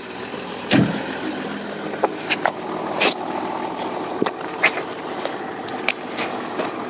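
Car engine idling steadily, with scattered short, sharp clicks and knocks over it.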